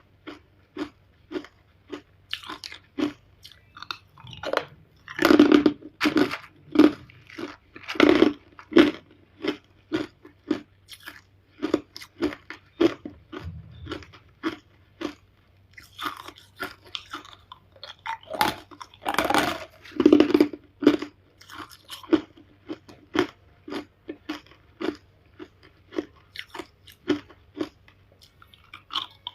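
Close-miked chewing of hard ice: a steady run of sharp crunches several times a second, with louder bites and grinding around a fifth and two-thirds of the way through.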